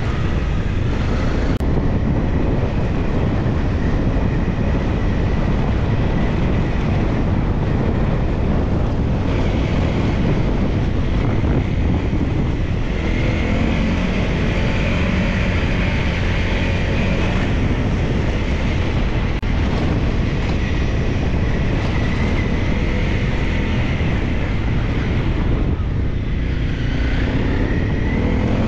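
Wind buffeting the microphone over the engines of small single-cylinder dirt bikes riding a dirt track, their pitch rising as the riders open the throttle, most clearly near the end.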